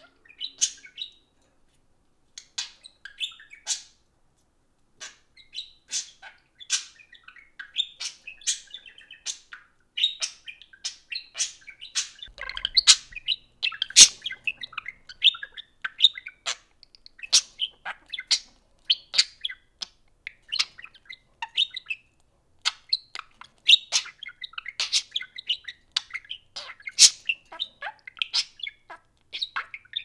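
Budgerigars chirping and warbling: a quick run of sharp chirps and chatter, with a couple of short pauses in the first few seconds and busier, near-continuous chatter after that.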